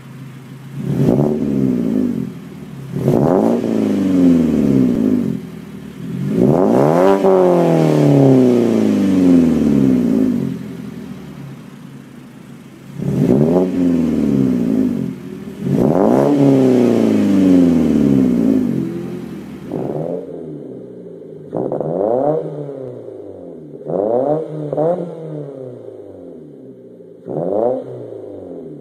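Mazda 3 Skyactiv four-cylinder with a Corksport aftermarket exhaust being free-revved while parked, several revs that climb quickly and fall away, some held for a few seconds. About two-thirds of the way through it changes to a Mazda 3 2.0 four-cylinder with a Vibrant exhaust giving about six shorter, quicker revs.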